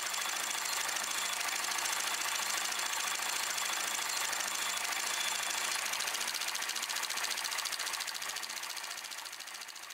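Hand-cranked Lumière Cinématographe film mechanism clattering rapidly and evenly, fading away near the end.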